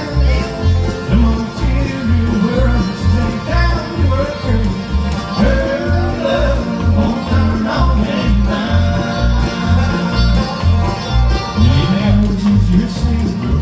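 Bluegrass band playing live, banjo and guitar over a steady bass beat.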